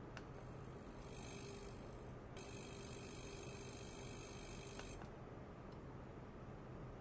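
Portable ultrasonic cleaner running with stainless steel containers in its bath: a high-pitched hiss with several steady whining tones. It comes on just after the start, grows louder about two and a half seconds in and cuts off about five seconds in, over a faint low hum.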